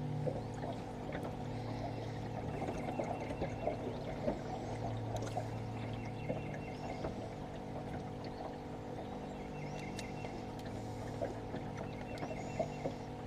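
Small metallic clicks and ticks of pliers working a hook out of a catfish's mouth, over a steady mechanical hum and trickling water.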